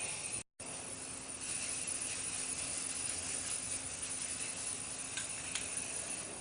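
Aerosol can of white spray paint spraying in a long, steady hiss, with a brief silent dropout about half a second in.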